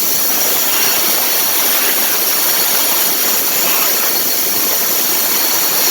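Grain vacuum running steadily, a loud, even rushing hiss as air and shelled corn are pulled through its 5-inch hose.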